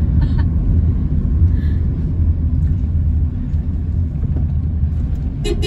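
Steady low rumble of a car driving in slow traffic, the engine and road noise heard from inside the cabin.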